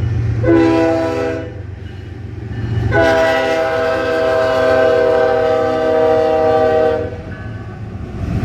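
Train horn sounding a short blast, then a long blast of about four seconds, over a steady low rumble.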